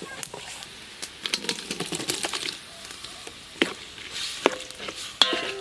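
Chopped watermelon tipped from a metal bowl into a large aluminium cooking pot and stirred with a spatula: scattered clinks and knocks of metal and utensil against the pot over a wet scraping stir. Near the end a short pitched call cuts in.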